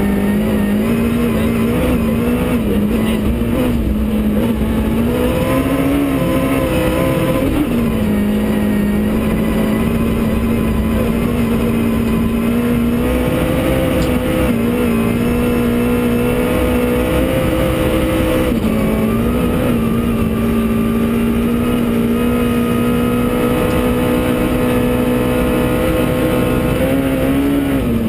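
Suzuki S1600 rally car's 1.6-litre engine running hard at high revs, heard from inside the cabin, its pitch dipping briefly and climbing again a few times as the car is driven flat out through a special stage.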